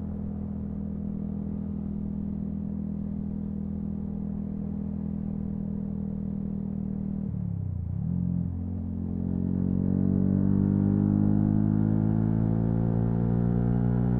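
Yamaha MT-125's single-cylinder four-stroke engine heard from the bike while riding, running at steady revs. About seven seconds in the revs dip sharply, then climb steadily and get louder as the bike accelerates.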